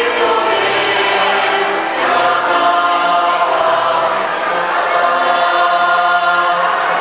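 A choir singing, holding long sustained chords, with a change of chord about two seconds in.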